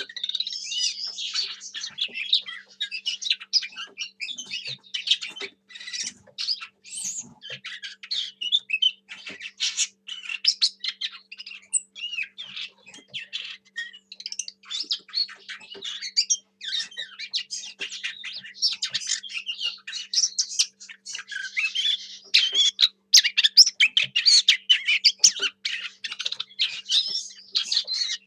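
Lesser whitethroat singing: a long, rambling warble of quick chattering notes, broken by many brief pauses.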